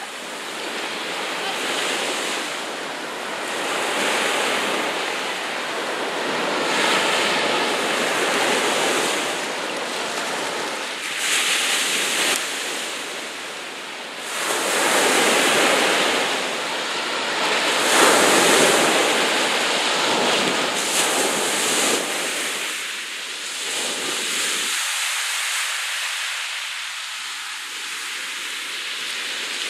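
Choppy sea waves washing, a rushing that swells and ebbs every few seconds, loudest a little past halfway.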